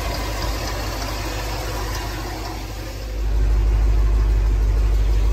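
1971 Ford F100 engine with headers idling on new Remflex header gaskets, with no exhaust-leak tick, and a rattle from the alternator. About three seconds in, the deep low rumble gets much louder.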